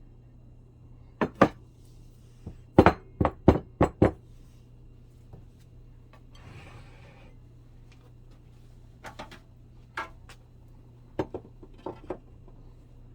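Kitchen utensils knocking and clinking against a mixing bowl in short clusters, with a quick run of about six sharp knocks near the start. A brief soft rustle comes around the middle.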